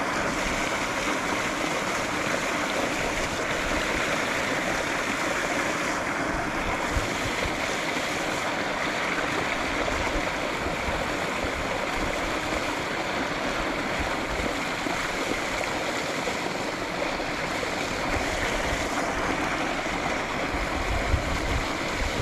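Creek water rushing steadily over a shallow rocky riffle.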